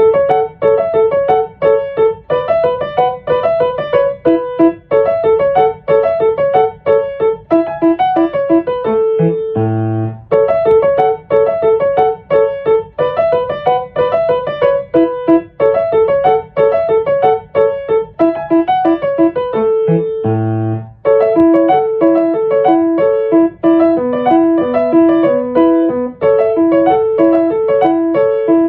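Background music: a piano-style keyboard tune in quick, even repeated notes, with a brief held chord about ten seconds in and again about twenty seconds in.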